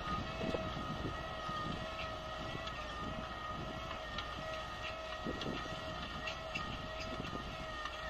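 Valmet 985 tractor's diesel engine working steadily under load as it pulls an offset disc harrow, a steady high whine over a low rumble, with faint ticks.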